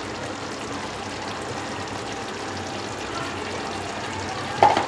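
Chicken curry simmering in an aluminium kadai on a gas stove, a steady soft hiss of bubbling, with a short sharp sound near the end.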